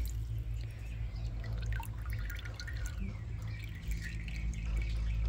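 Water dripping and trickling from a mesh strainer of freshly scooped wolffia (watermeal) into a steel bowl of water, with small splashes from a spoon skimming the surface, over a steady low hum.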